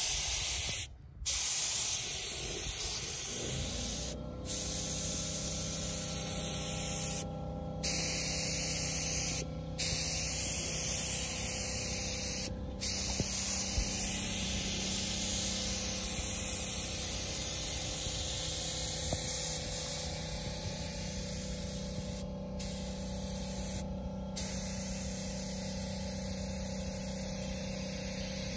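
Eastwood Concours LT100 HVLP spray gun laying down a first coat of paint: a steady hiss of air and atomised paint in long passes, cut off briefly each time the trigger is let go, about seven times. A steady low hum runs underneath from about three seconds in.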